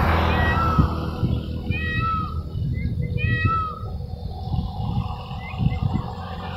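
Indian peafowl calling: a few short, arching calls given in small clusters, the clearest about two and three and a half seconds in.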